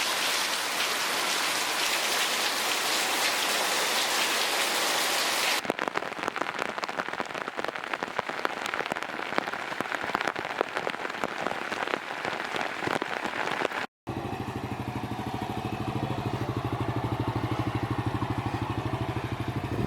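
Monsoon rain pouring down steadily. About five and a half seconds in, it changes to rain with many separate drops pattering on surfaces. After a brief drop-out about two-thirds of the way through, a small motorcycle engine takes over, idling with an even pulse.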